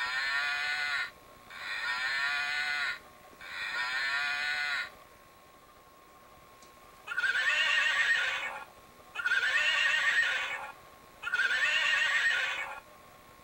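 Squeeze-activated sound box in a GUND Animal Chatter plush cow playing a recorded moo three times, then the plush horse's sound box playing a recorded neigh three times; each call lasts about a second and a half, with short gaps between.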